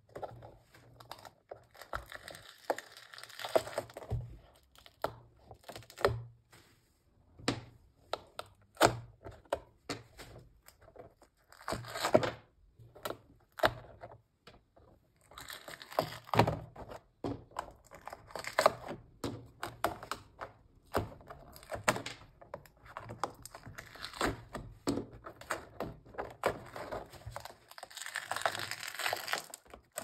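Dried gold-painted relief pieces being peeled and cracked off a stretched canvas: irregular crackling and tearing in several stretches, among scattered knocks and thuds.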